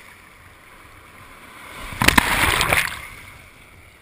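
Whitewater rushing around a kayak, with a loud splash about two seconds in that lasts most of a second, sharp slaps of water in it, as the churning water breaks against the boat.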